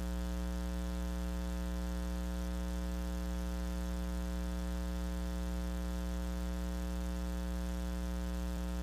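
Steady electrical hum: a constant low buzz made of many even tones, unchanging throughout, typical of mains hum on an audio line.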